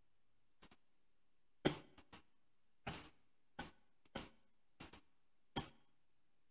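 Computer mouse clicking: about ten sharp clicks spread over the few seconds, several in quick pairs like double-clicks.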